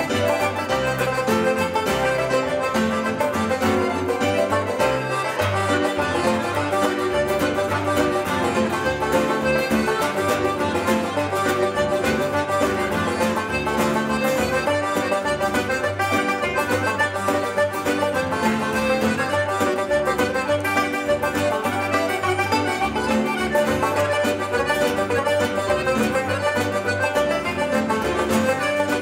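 Irish traditional band playing a set of reels live: acoustic guitar, accordion, banjo and keyboard playing together at a steady, lively pace, without a break.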